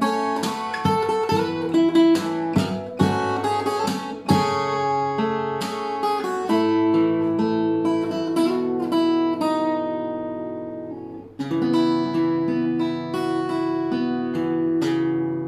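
Capoed acoustic guitar played fingerstyle: quick plucked notes and percussive strums for the first few seconds, then slower ringing chords. About eleven seconds in, a fresh strum starts chords that ring and begin to fade near the end.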